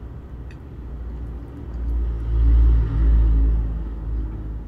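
A motor vehicle driving past, its low engine rumble swelling to a peak about halfway through and then fading away.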